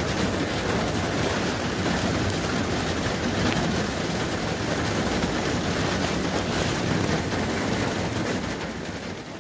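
Rain falling steadily, an even hiss that fades out near the end.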